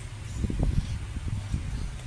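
Low, uneven rumbling and rustling handling noise from a handheld phone being moved.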